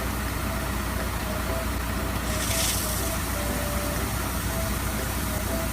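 Heavy truck engine idling steadily, a deep even rumble under a hiss. A short burst of hissing air comes about two and a half seconds in.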